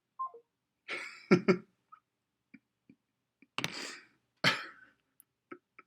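A person coughing in short, harsh fits, about a second in and twice more a little past halfway.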